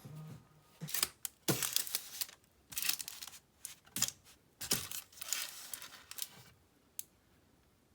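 Packaging material being handled for wrapping handmade soap, crinkling and tearing in irregular bursts for several seconds, then a single click near the end.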